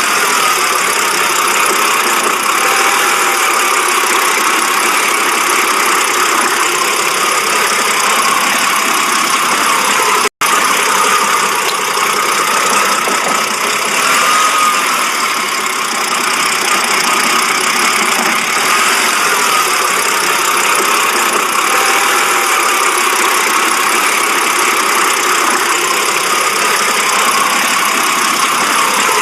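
BMW engine idling roughly, a steady running sound with an uneven edge, the rough idle this car is shown for. The sound cuts out for an instant about ten seconds in.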